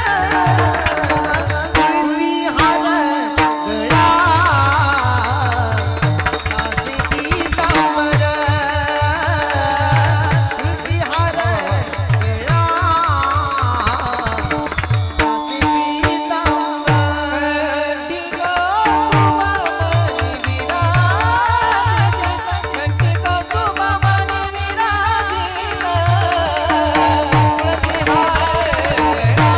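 Marathi kirtan devotional singing (a panchpadi): a singer's voice with wavering ornamentation over a steady held drone, regular low drum strokes and high percussive ticks keeping the rhythm.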